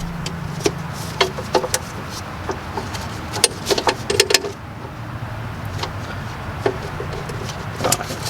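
Metal clinks and taps of bolts and tools being handled and threaded in by hand, in scattered bunches, over a steady low mechanical hum.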